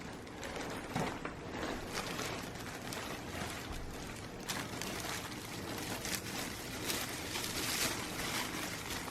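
Unpacking noises: rustling and scattered light knocks as packaging is handled.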